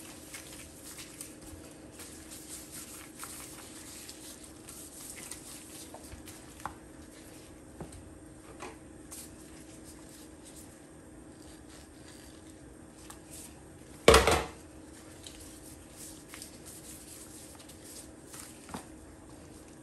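Gloved hands rubbing and turning raw chicken pieces with cut limes in a plastic bowl: soft, wet handling sounds and light clicks as the meat is cleaned with lime. One loud, short knock comes about two-thirds of the way through.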